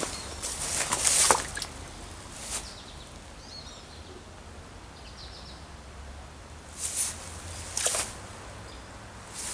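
Footsteps of someone walking in the woods: a few steps about a second in, one near 2.5 s and two more near the end, with a quieter stretch in between.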